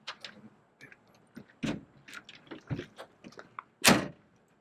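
A run of light clicks and knocks from something being handled, with one loud thump about four seconds in.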